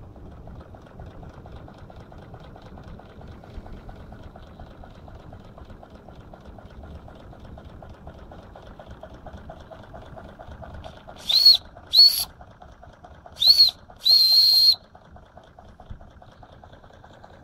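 Wilesco D22 toy steam engine running with a rapid, steady chuffing of its cylinders. About eleven seconds in, its boiler's steam whistle gives four short, shrill toots, the last held a little longer.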